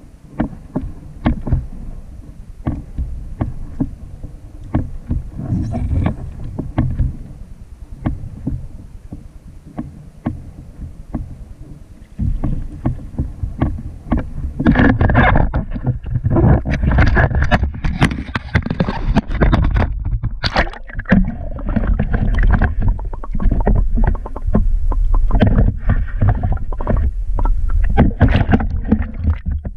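Water sloshing and splashing against a fishing kayak's hull, with frequent small knocks and clicks. About halfway through the water noise gets much louder and busier, with dense splashing to the end.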